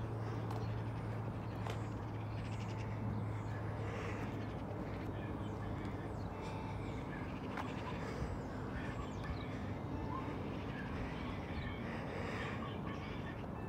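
Birds calling and chirping over street background noise, with a steady low drone that stops about seven seconds in.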